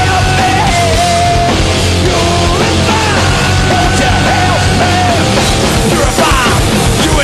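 Heavy metal song played by a full band: distorted electric guitars, bass and drums, with a man singing and shouting the lyrics.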